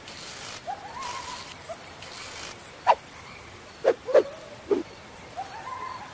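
Night-time nature ambience sound effect: a faint high insect-like hiss, with a few short falling chirps between about three and five seconds in and two soft rising calls.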